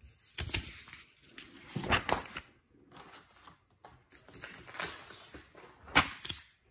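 Sheets of printer paper being handled and shuffled: several rustling swishes, the loudest near the end.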